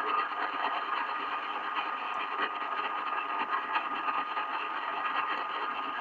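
Medium-wave AM radio receiving a strange noisy signal: a steady, rasping static with a thin steady whistle that fades out near the end.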